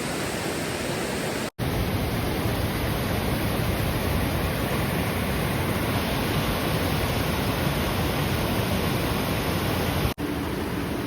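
Steady rush of fast-flowing river water, broken twice by a split-second dropout, about one and a half seconds in and near the end.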